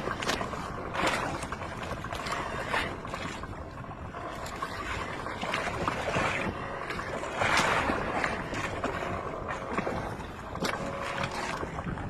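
Sea noise around a small fishing boat: water washing and slapping against the hull with scattered short knocks, and a louder rush of water about seven and a half seconds in.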